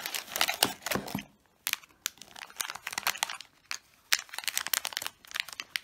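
Crinkly packaging handled in the hands, rustling and crackling in irregular bursts with brief pauses.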